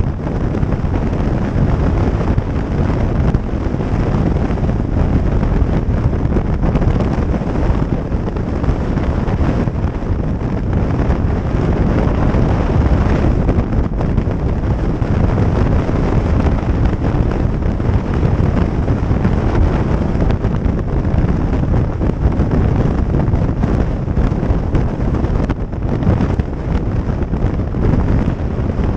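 Wind rushing over the microphone of a motorcycle at road speed: a loud, steady buffeting with the bike's running noise beneath it.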